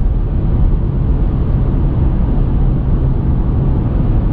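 Cabin noise inside a 2019 Porsche Macan with the 2.0 turbo four-cylinder, cruising on a highway: a steady engine drone under road and wind noise.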